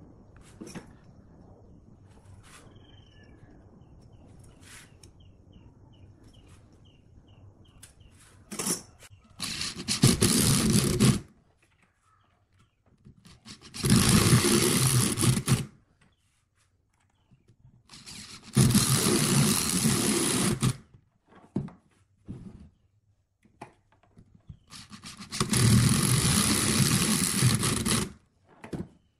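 Electric drill running in four bursts of one to two and a half seconds, boring into a log through the holes of a metal lathe faceplate to fix it to the wood.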